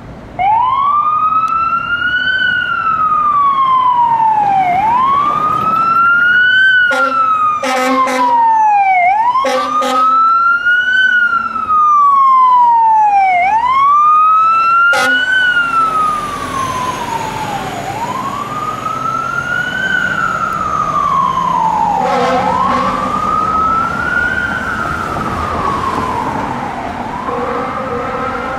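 Pierce aerial ladder fire truck's siren on a slow wail, rising and falling about every four seconds, with several short air horn blasts in the middle, as the truck pulls out and drives off.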